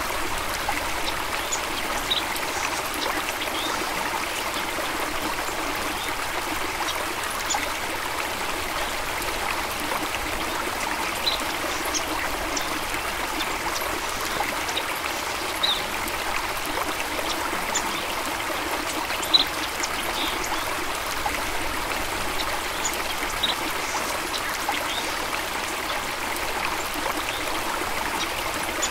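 Shallow stream of water flowing and trickling steadily, with small splashes and drips standing out every second or two.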